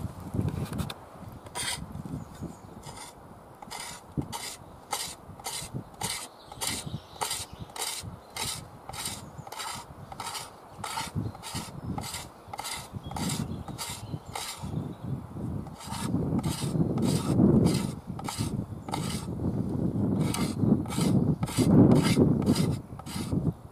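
Steel shovel blade scraping down a wooden stick in quick repeated strokes, about two a second, shaving off wood.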